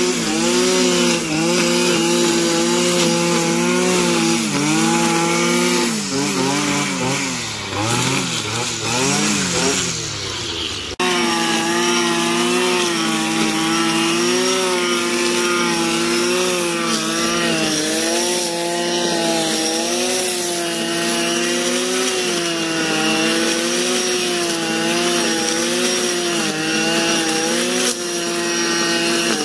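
Stihl petrol brushcutter running at high revs while cutting tall grass, the engine note wavering slightly under load. For a few seconds before the middle the revs sag and rise unevenly, then the sound breaks off abruptly and comes back at a steady high pitch.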